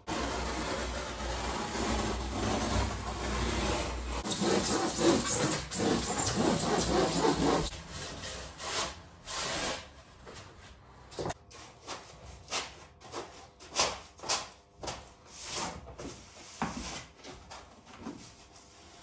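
Foil-faced rigid foam insulation boards (Kingspan Therma) being cut and fitted. For the first several seconds there is a continuous rasping, saw-like scraping, louder about four seconds in. It then breaks into a run of separate short scrapes and rubs as boards are handled and pressed between timber studs.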